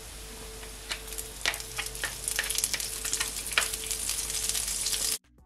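Garlic and butter sizzling in hot olive oil in a skillet, a steady crackling sizzle with frequent pops that grows a little louder. It cuts off suddenly near the end.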